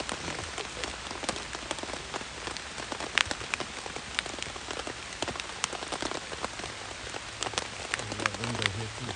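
Rain pattering on the tent's fabric, heard from inside the tent: a steady hiss with many sharp, irregular drop hits.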